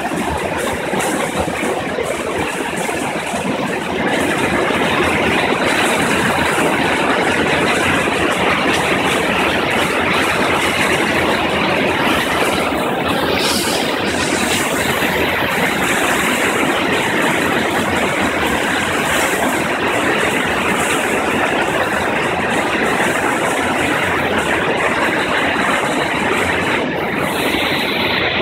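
River water rushing over rock: a loud, steady whitewater rush that grows louder about four seconds in.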